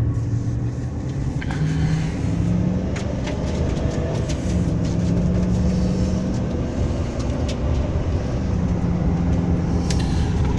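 2005 Chevy Silverado 2500HD's 6.0-litre V8 pulling under acceleration, heard from inside the cab with steady road and tyre noise. The engine note climbs and levels off a few times as the truck gathers speed.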